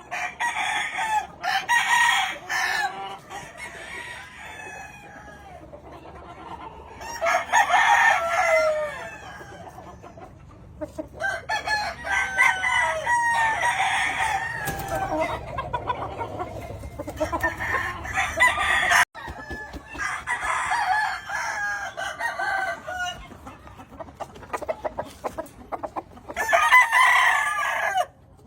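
Several Yellow Leg Hatch gamefowl roosters crowing one after another, with clucking between the crows.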